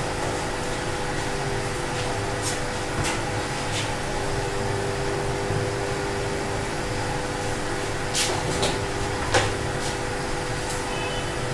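A steady mechanical hum with a few light clicks scattered through it.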